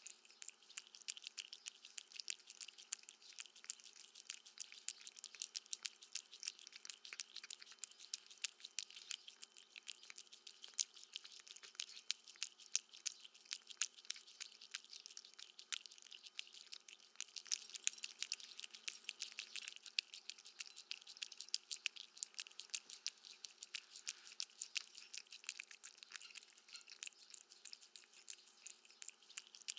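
A cat eating, chewing steadily: a fast, continuous run of small sharp clicks, several a second, faint and close.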